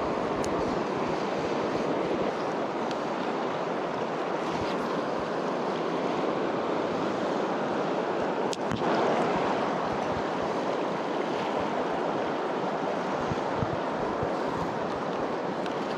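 Steady rush of flowing river water, with one sharp click about halfway through.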